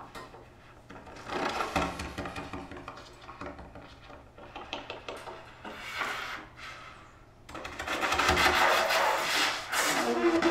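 Rasping, unpitched air noise blown through a two-belled brass horn with daisies packed in its bells. It comes in irregular spurts, then turns into a louder continuous rush about three quarters of the way in.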